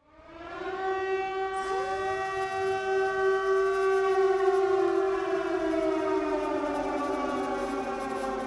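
Mini hexacopter's motors and propellers whining, several tones at slightly different pitches, rising out of silence at the start as the craft spins up. The pitches glide up and down with the throttle, one sweeping up about two seconds in and the main tones sagging lower in the second half.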